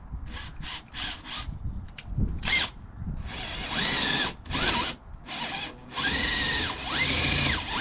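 Cordless drill with a 12 mm bit enlarging 8.5 mm pilot holes. It starts in a string of short trigger pulls, then runs longer, the motor whine rising to speed, holding, and dropping off each time the trigger is let go.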